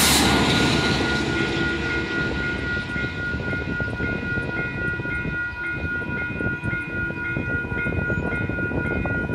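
Railroad grade-crossing warning bells ringing steadily with a regular pulse as the passing Metrolink train's rumble fades away over the first couple of seconds. The bells keep ringing while the crossing clears and the gate arms rise.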